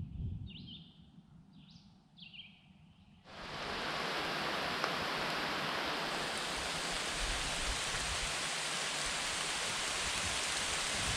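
A few short bird chirps, then about three seconds in a heavy downpour of rain sets in all at once and keeps up a steady loud hiss.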